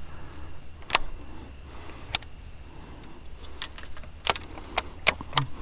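About six sharp clicks and knocks at uneven spacing, one about a second in and most of them close together near the end, over a faint steady high hum.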